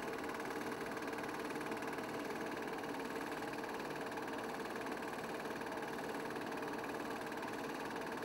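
A small motor running steadily, with a constant hum and a fast, even rattle that does not change in pitch or loudness.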